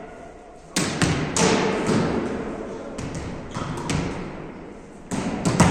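Volleyballs being struck and bouncing on a wooden gym floor: a series of sharp smacks and thuds, each echoing in a large hall, in three clusters about two seconds apart.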